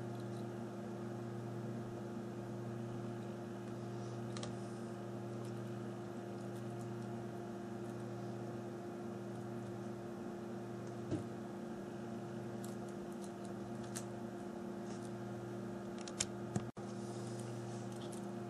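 A steady electrical hum, with a few faint clicks and taps as small phone parts are handled.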